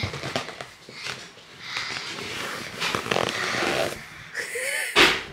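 Breathy, wordless noises from a young child close to the microphone, with a short, sharp loud burst near the end.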